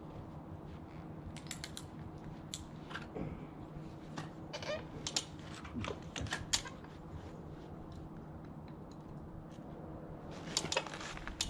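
Stick welder humming steadily, with irregular sharp crackles and ticks as a 6013 rod runs on steel.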